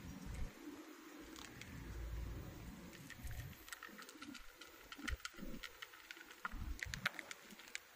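Two cats chewing dry kibble from a shallow plate: a run of small, irregular crunches and clicks, denser in the second half, over a low rumble that is loudest about two seconds in.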